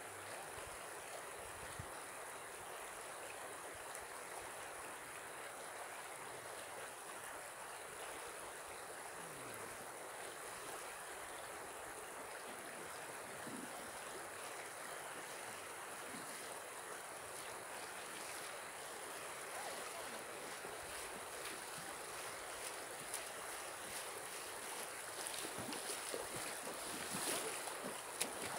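Shallow river running steadily over its bed. Near the end, water splashing as a person wades through it close by.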